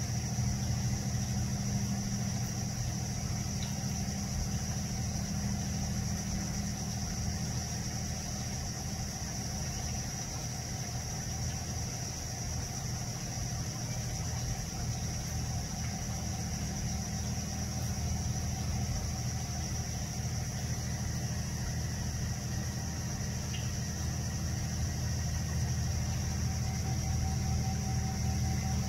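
Steady low hum of an idling engine that holds unchanged throughout, with a steady high-pitched hiss above it.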